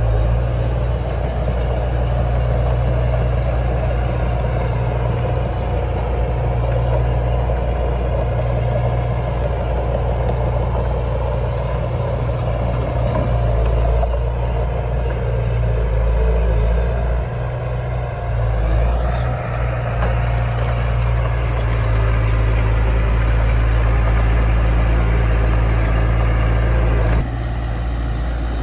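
Heavy diesel engine of earthmoving machinery running steadily at work. It drops suddenly quieter near the end.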